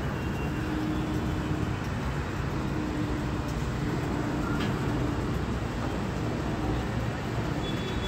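Diesel engine of a Hydra mobile crane running steadily under load while it hoists an excavator: a continuous low rumble with a faint steady hum coming and going.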